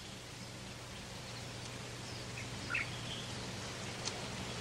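Quiet outdoor ambience: a steady hiss and low hum, with a few faint bird chirps about halfway through.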